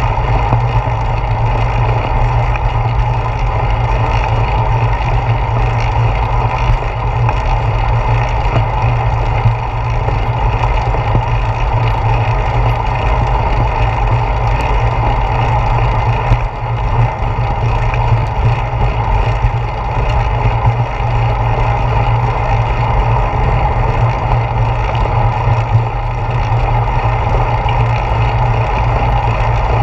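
Steady wind rush and road rumble picked up by a handlebar-mounted GoPro Hero 4 on a bicycle riding along a paved street, loud and unbroken.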